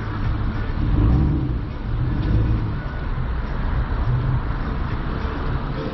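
Car engine idling, a steady low rumble, heard from inside the car.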